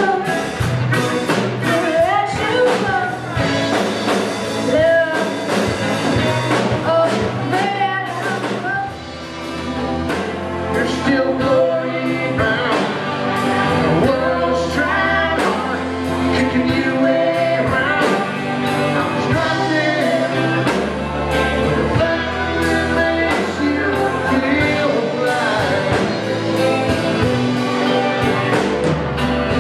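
Live band playing a song: singing over electric guitar, drums and keyboard, with a steady beat of drum hits.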